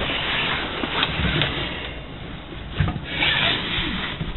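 Rustling, rubbing handling noise from a handheld camera being moved about, with a few dull knocks.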